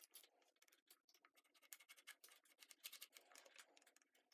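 Faint, irregular scratching of a thin pointed tool scored along a plastic shifter bezel, tracing the inside of a switch mount to mark out a square cut-out.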